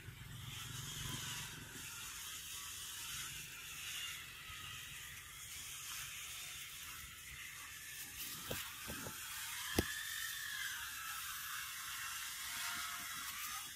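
Steady outdoor background buzz that wavers slowly in pitch, with a few sharp clicks between about eight and ten seconds in.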